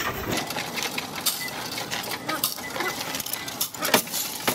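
Loose coins clattering and clinking in a Coinstar coin-counting kiosk's metal intake tray as they are pushed into the slot, over the machine's counting mechanism running with rapid clicking.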